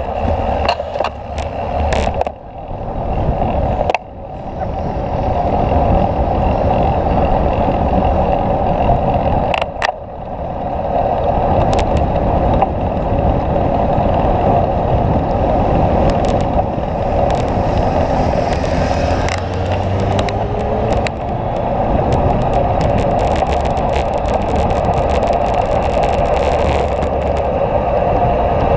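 A motorcycle on the move: wind rushing over the microphone and road noise, with the engine running underneath. The sound dips briefly twice, about four and ten seconds in, and otherwise runs steady, with a few sharp knocks in the first couple of seconds.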